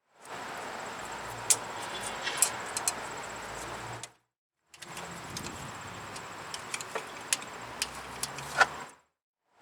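Light clicks and taps of a small screwdriver prying plastic wiring clips loose from the ABS wheel-speed-sensor harness, over a steady background hiss. The sound cuts out briefly about four seconds in.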